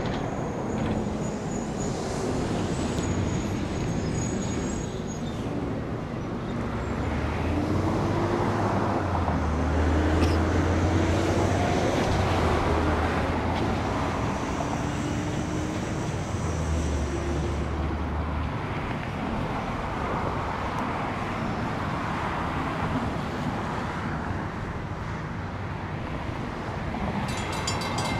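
Low engine rumble that builds over the middle and fades again, with outdoor traffic noise. Near the end a railroad crossing's WCH mechanical bell starts ringing in rapid, even strokes as the crossing signals activate for an approaching train.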